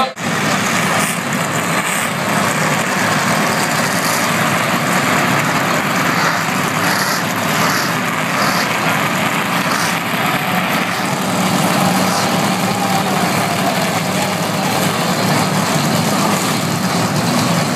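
A field of NASCAR stock cars' V8 engines idling together on pit road, a loud, steady, dense rumble.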